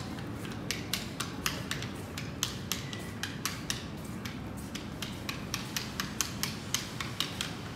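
Footsteps clicking on hard pavement, several sharp taps a second, over a steady low rumble.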